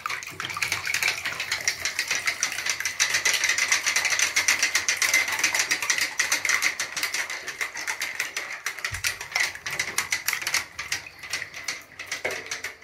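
Plastic clockwork mechanism of wind-up swimming bath toys making a rapid, continuous clicking rattle, a little quieter in the last few seconds.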